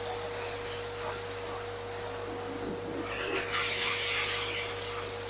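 Hose-fed dog grooming dryer running steadily, blowing air over a wet dog's coat: a steady motor whine under a rush of air, which grows louder about three seconds in.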